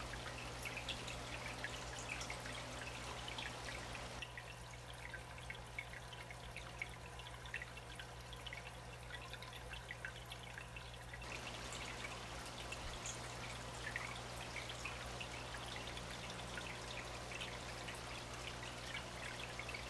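Aquarium water trickling and splashing where the SunSun HW-603B canister filter's return flow breaks the surface, with many small droplet plinks over a steady low hum. It goes softer for several seconds in the middle.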